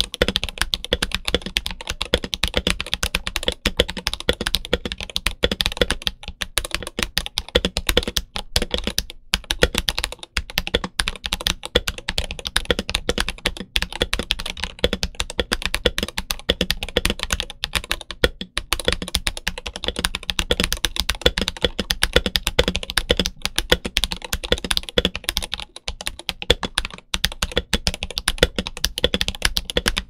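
Fast, continuous typing on an RK84 mechanical keyboard fitted with RK Yellow linear switches and ABS doubleshot OEM-profile keycaps: a dense, steady stream of keystroke clacks.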